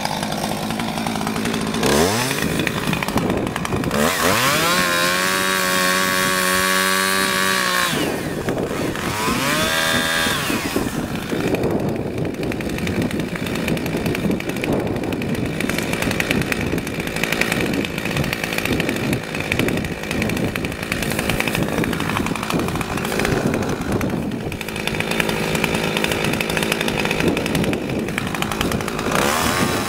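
Chainsaw revving up and cutting brush and saplings at ground level. It rises in pitch twice in the first few seconds and holds high revs for a few seconds, then runs rough and uneven under load for most of the rest as the chain bites into the stems, revving up again near the end.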